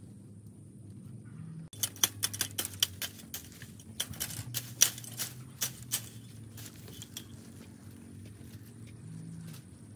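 Dry bamboo leaves and twigs crackling and snapping in a dense run of sharp, irregular clicks, as someone pushes into a bamboo thicket through dry leaf litter; it starts about two seconds in and thins out after about seven seconds.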